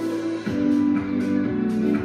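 Music playing, with held chords; a new chord comes in about half a second in.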